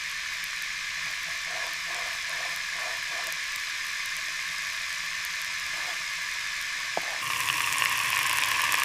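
Steady hiss of ambient noise, with a single click about seven seconds in, after which it grows louder and takes on a fine crackle.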